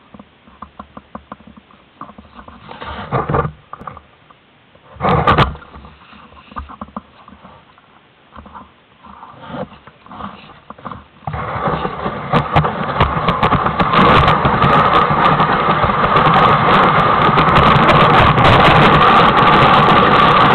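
Boots shuffling and crunching in snow with a couple of louder bumps as a rider settles on a wooden sled. About halfway through, a steady, loud rush begins as the sled slides away downhill over the snow and picks up speed.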